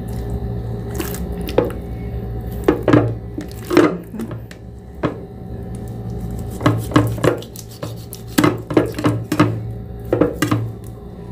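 Kitchen knife cutting up a whole raw chicken, the blade knocking irregularly on a chopping board, sometimes in quick runs of several strokes.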